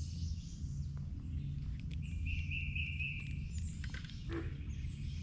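Wild birds chirping in the woods over a steady low rumble, with a buzzy trill for about a second starting two seconds in. Light clicks and rustles come from handling a caught largemouth bass and unhooking it.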